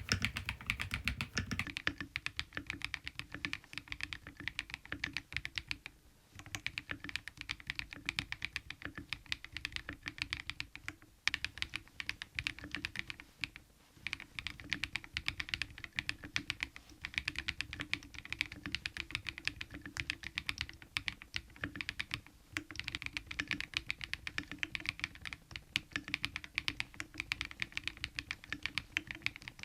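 Fast, continuous typing on a KiiBOOM Phantom 81 V2 mechanical keyboard, a steady patter of key clicks that pauses briefly a few times.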